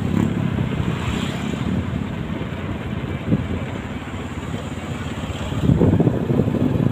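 Small motorcycle engine running while riding, with wind blowing on the microphone, growing louder near the end.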